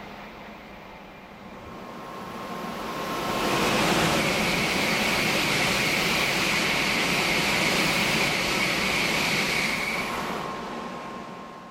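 Tokaido Shinkansen N700-series bullet train passing through a station at high speed without stopping. A rising rush as it nears, a loud steady rushing noise with a high whine for about six seconds while the cars go by, then fading near the end.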